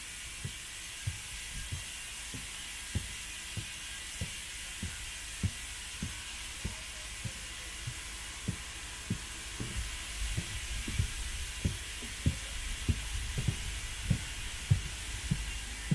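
Steam-hauled passenger train moving off: regular low thuds about every half second over a steady hiss, coming quicker and louder in the last few seconds as it picks up speed.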